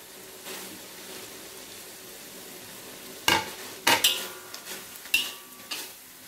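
Squid cooking in sauce in a metal wok, a steady low sizzle. About three seconds in, a metal spatula starts stirring, scraping and knocking against the wok several times.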